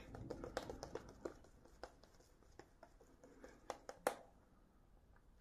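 Shaving brush working lather over the face: faint soft scratching of the bristles on the skin, with scattered light clicks and one sharper tick about four seconds in.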